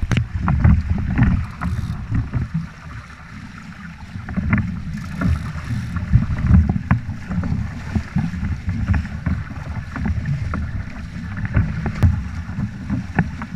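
Wind buffeting the microphone and water rushing past the hulls of a Nacra 6.0 sailing catamaran underway. A gusting low rumble carries throughout, with scattered sharp ticks and splashes.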